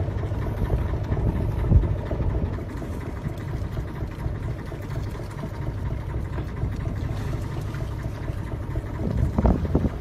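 Boat engine running steadily with a low rumble, with a few short knocks near the end.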